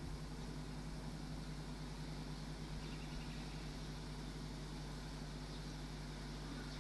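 Steady low hum with an even hiss, no distinct sound from the stork.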